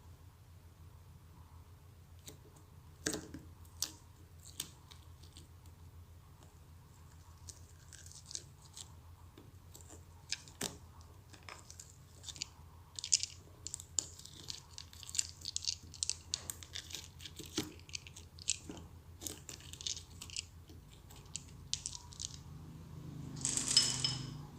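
Slime being squeezed and stretched by hand, making sticky clicks and crackles: a few scattered clicks at first, then a dense run of small crackling pops, and one louder squish near the end.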